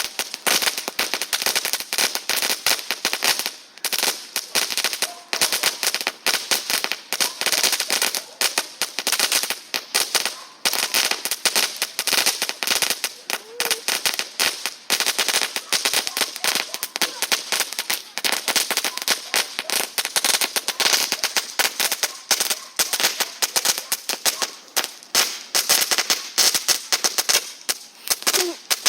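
Firework crackling: a dense, rapid, unbroken series of sharp pops and cracks.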